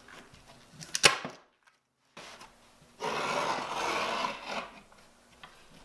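A staple gun fires once into carpet over a wooden board: a single sharp snap about a second in. After a cut comes about a second and a half of scratchy rubbing as carpet is worked by hand against the board.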